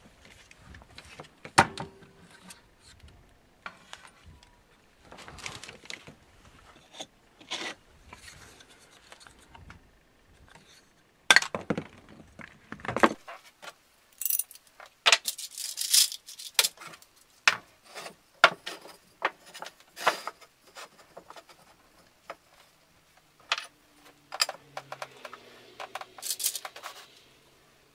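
Metal mounting brackets and screws clinking and 2x4 wood pieces knocking and rubbing as they are handled on a workbench: scattered, irregular clicks, knocks and clinks.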